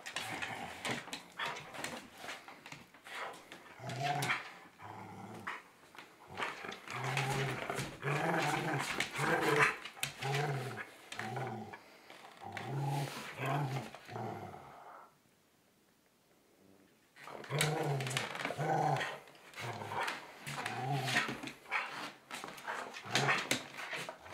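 A dog growling over and over in short bursts while it mouths and tugs at a person's sock-covered foot, with sharp clicks and scuffling between the growls. The growling stops for about two seconds roughly two-thirds of the way through, then starts again.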